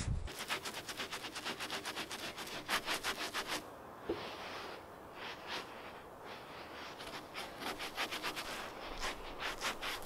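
A rag in a gloved hand rubbing Anchorseal end-grain sealer onto the sawn ends of timber beams: quick scrubbing strokes, about four or five a second, easing off for a few seconds around the middle.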